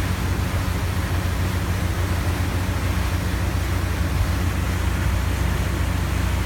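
Steady low drone of a ship's engines under an even hiss of wind and water.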